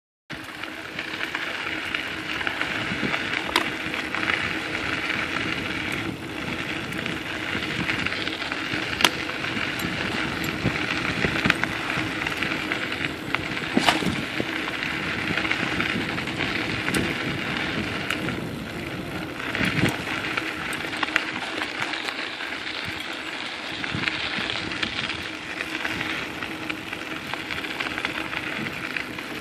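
Riding noise while travelling along a dirt forest trail: a steady rolling rush of tyre and wind noise, with scattered knocks and rattles as the machine goes over bumps.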